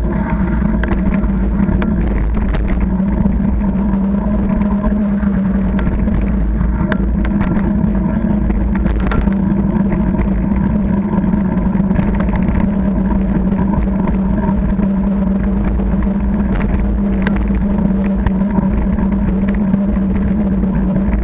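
Steady riding noise picked up by a camera mounted on a moving bicycle: tyres rumbling on tarmac under a constant hum, with scattered rattling clicks.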